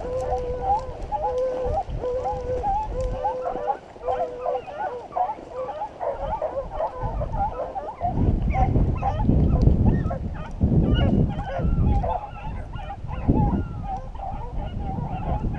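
Beagles baying in chorus as they run a rabbit's scent: a continuous run of short, wavering hound calls from several dogs at once. From about eight seconds in, heavy low rumbling bursts on the microphone come in over the baying for several seconds.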